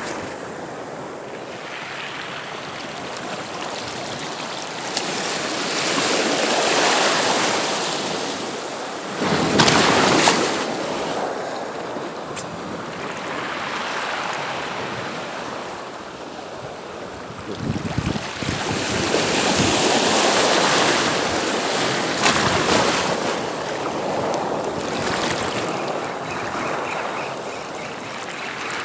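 Sea waves washing onto the shore, swelling and breaking in surges every few seconds.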